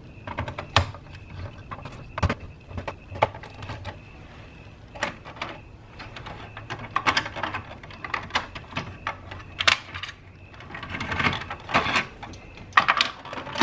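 Scattered clicks, taps and rustles as field wires are worked loose and pulled from the screw terminals of a plastic sprinkler controller.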